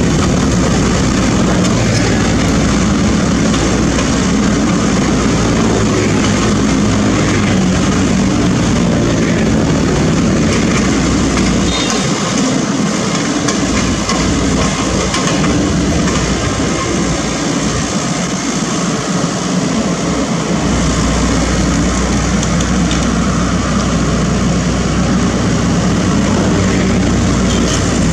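SANY SY75C mini excavator's diesel engine running steadily as the machine works. Its deep rumble thins for several seconds around the middle, then returns.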